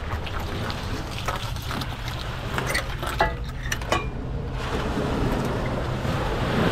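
Metal boat-launching trolley rattling as it is dragged on its wheels over a pebbly beach, with several sharp metallic clinks, over a steady wash of wind and small waves.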